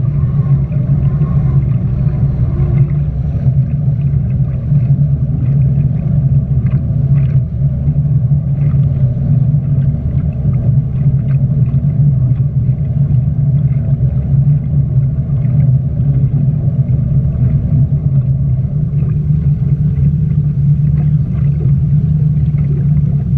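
Speedboat engine running at a steady cruise, a constant low drone with wind and water noise over it.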